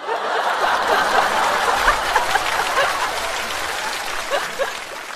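Studio audience laughing and applauding, breaking out all at once and slowly dying down near the end.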